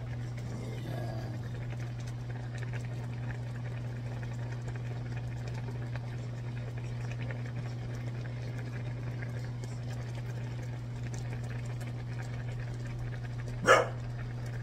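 A dog barks once, sharply, near the end, over a steady low hum.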